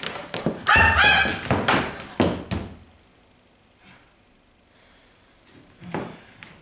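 A performer's ape-like vocal calls, two short high hoots about a second in, amid a run of thumps, likely stamping and body slaps, then a quiet stretch and a few more thumps near the end.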